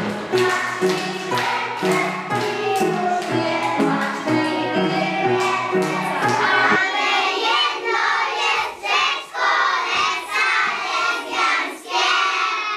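A song sung by children, with musical accompaniment and a bass line. About seven seconds in the bass drops out and the singing voices go on.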